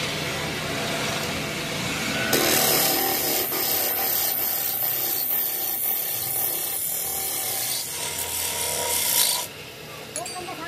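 Hand-held chisel shaving a wooden disc that spins on a belt-driven lathe: a steady scraping hiss of wood being cut. The cutting grows louder about two seconds in and eases off about a second before the end.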